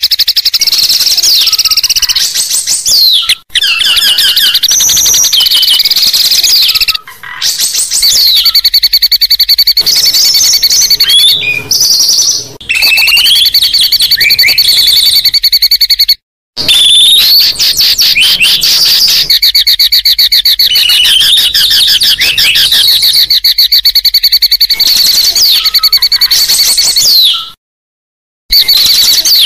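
Loud, continuous songbird song of fast trilled chirps and short gliding whistles, broken by a few sudden brief silences. It is a masteran track for training white-rumped shamas (murai batu) to sing.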